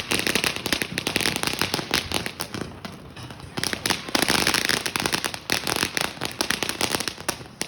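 Consumer fireworks crackling: a dense, rapid run of sharp pops and crackles, loudest about four seconds in.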